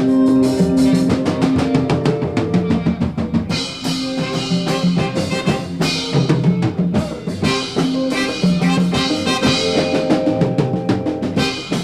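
Live jazz band playing, the drum kit to the fore: fast kick and snare hits with rimshots over a line of held bass notes.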